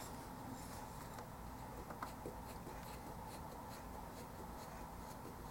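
Faint handling of small plastic miniature kit parts: light ticks and scrapes as the hands work on the tabletop piece, with a couple of slightly stronger clicks about two seconds in.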